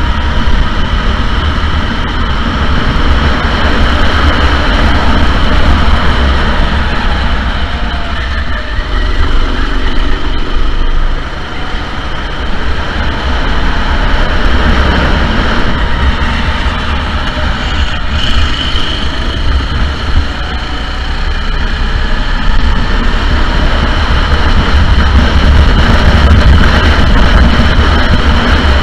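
Sodi SR4 go-kart engines running at race pace, their pitch wavering up and down with the throttle over a strong, steady low rumble.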